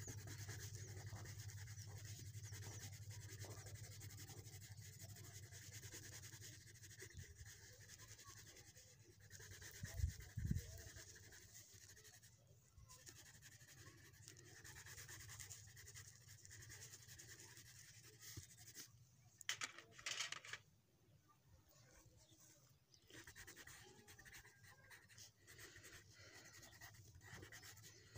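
Faint scratching of a coloured pencil rubbing on paper as a drawing is coloured in, over a low steady hum. Two low thumps come about a third of the way in, and a short rustle about two-thirds in.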